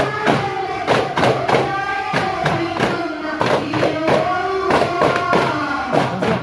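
Duff frame drums struck together by a troupe in sharp, uneven beats, about two a second, over group singing on long held notes.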